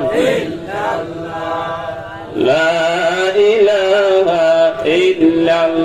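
A man's voice chanting a slow Islamic devotional melody (zikr), holding long notes. Each of three phrases slides up in pitch at its start.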